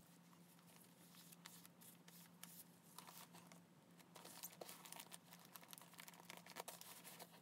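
Faint rustling and crinkling of wet, water-activated paper packing tape being laid across a kraft-paper-wrapped package and pressed down by hand. A faint steady low hum runs underneath.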